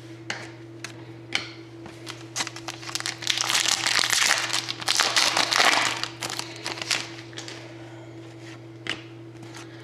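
Trading cards and their pack wrapper being handled: scattered clicks and crinkling, with a denser stretch of rustling in the middle. A steady low electrical hum runs underneath.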